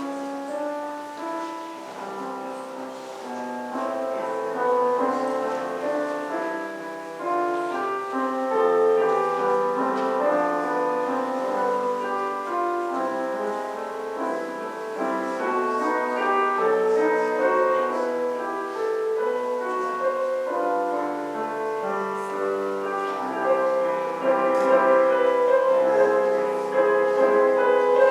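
Slow instrumental keyboard music of held chords and melody notes, with no singing.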